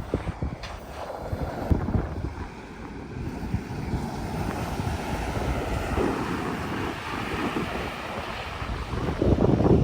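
Wind buffeting the microphone over the steady wash of ocean surf, the gusts getting louder near the end.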